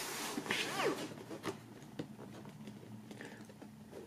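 Hands working at a cardboard box lid, trying to lift a die-cut flap that is held fast at the side by a small tab. A rasping rub with a short squeak sliding down in pitch in the first second, then a few light clicks and taps of the cardboard.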